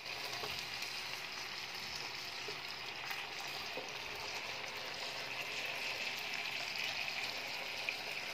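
Marinated chicken pieces sizzling in oil in a ridged grill pan: a steady frying hiss with a few faint pops.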